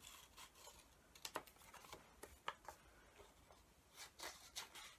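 Scissors snipping card: faint, crisp snips, a few at a time at irregular intervals.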